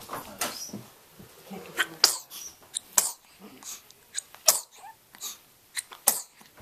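A string of small, sharp sneezes from one-month-old young, about one a second, one sneezing and then the other following suit.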